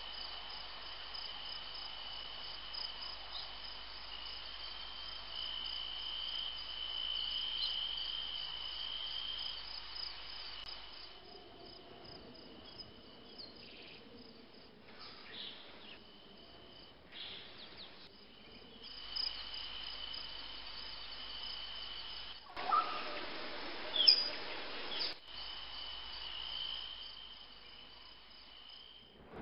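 Night ambience of an insect chorus: a steady high-pitched trill like crickets, which drops out and changes abruptly several times. About 23 to 25 seconds in, a louder stretch carries a few sharp animal calls, the loudest of them near its end.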